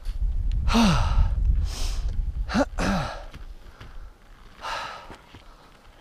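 A skier breathing hard with effort: about four heavy, gasping breaths, the first few with a groan in the voice that falls in pitch, the last one quieter, over a low rumble on the microphone.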